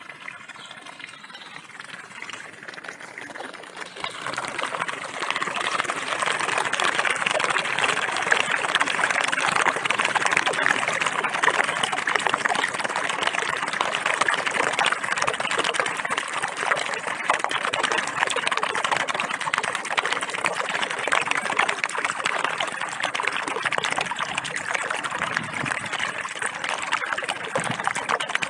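Rainwater from a flooded garden puddle draining down a drain hole in the ground: a steady rush of water that grows louder about four seconds in.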